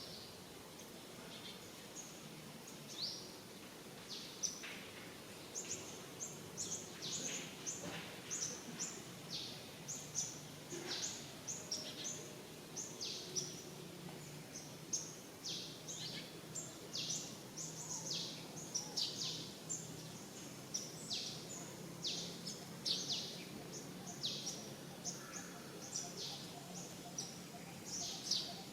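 Many short, high-pitched chirping animal calls, each sliding downward, coming irregularly and more often in the second half, over a faint steady low hum.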